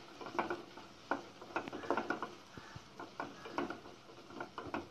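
Spatula scraping and knocking against a non-stick kadai as diced vegetables and fried chicken pieces are stir-fried, in irregular clicks and scrapes about two to three times a second.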